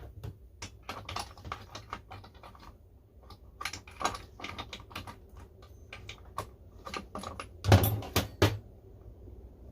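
Irregular light clicks and taps of a spark plug wrench and small parts being handled on a chainsaw's top end, with a quick cluster of louder clatter about eight seconds in.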